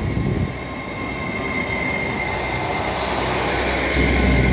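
GWR Hitachi Intercity Express bi-mode train moving slowly alongside the platform: steady running noise with a high whine, growing louder, and a deeper rumble coming up near the end.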